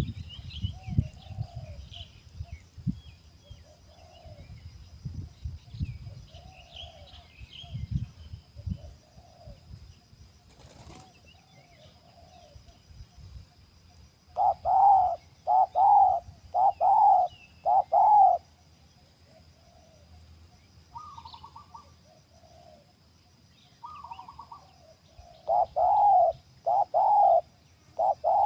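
Spotted doves cooing: soft coos through the first half, then a loud run of four evenly spaced coos about halfway through and another loud run near the end. Low thumps and rustling in the first several seconds.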